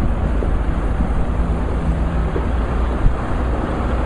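Steady low rumble of highway traffic, with a single short knock about three seconds in.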